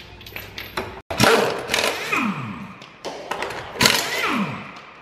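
Pneumatic impact wrench on a van's wheel bolts, loosening them to take the wheel off: two loud bursts, about a second in and near four seconds in, each dying away in a whine that falls in pitch as the tool spins down. A few light clicks come before the first burst.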